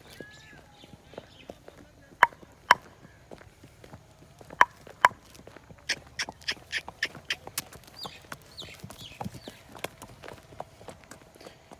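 A mare's hooves clip-clopping on hard ground: two pairs of sharp strikes, then a quicker run of hoofbeats from about six seconds in.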